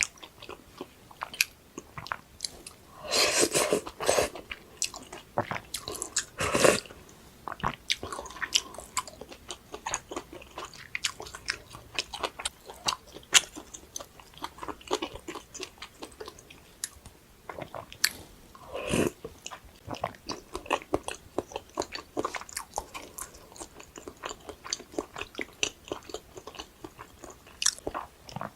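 Close-miked chewing and biting of food: many quick wet clicks and smacks, with a few longer, louder bursts about three, six and nineteen seconds in.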